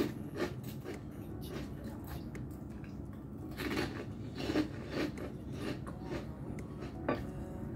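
A person chewing crisp fried food close to the microphone, with irregular crunches that come thickest about four to five seconds in.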